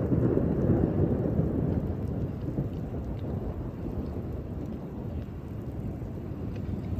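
Thunder rumbling from a severe thunderstorm: a low rumble that comes in suddenly, is loudest in the first second or two, and then rolls on more softly, with rain falling.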